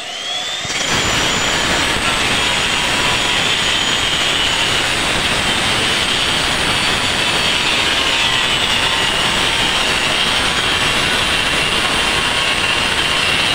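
Handheld electric circular cutter winding up at the start, then running steadily as its blade cuts through a bamboo pole: a loud, unbroken high whine over grinding noise.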